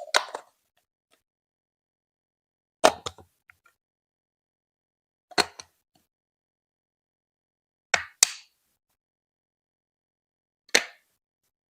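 Sharp hard plastic clacks on Lego Duplo bricks: five separate knocks about two and a half seconds apart, one of them doubled, with dead silence between.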